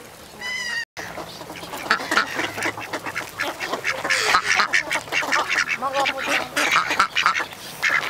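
A flock of ducks, mallards among them, quacking close at hand, many calls overlapping thickly after a short break about a second in.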